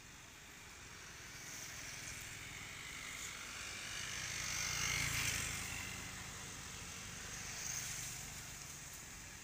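A motor vehicle passing by: its engine noise swells to its loudest about halfway through and fades away again.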